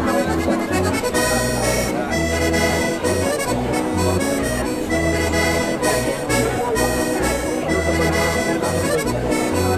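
Accordion playing a folk tune, with its bass notes sounding in a steady pulsing rhythm.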